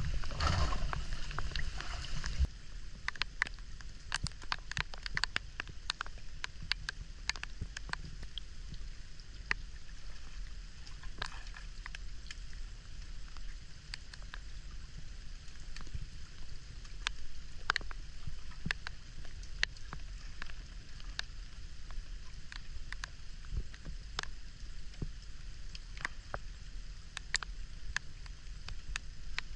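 Rain falling on open water, a steady hiss with scattered sharp drip ticks. For the first two seconds or so, water sloshes close by.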